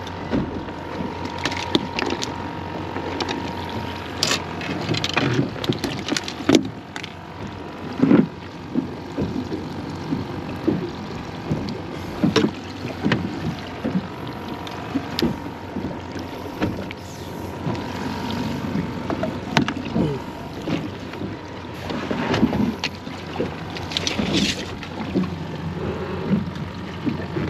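Irregular knocks, clicks and rustles of a freshly caught mangrove snapper and fishing tackle being handled on a small boat's fiberglass deck.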